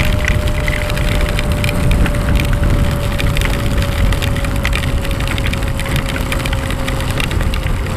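Wind and heavy rain noise on a motorcycle at highway speed: a dense crackle of raindrops over a low rumble, with a thin steady hum that slowly falls in pitch.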